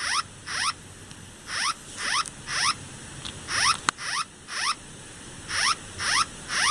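Electronic emergency-alert tone: short, rising whoops that repeat in groups of three about every two seconds over a steady hiss.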